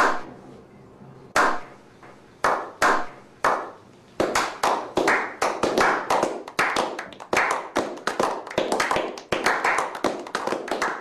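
A small group of people clapping: a few slow, widely spaced claps that build, about four seconds in, into quicker, overlapping applause.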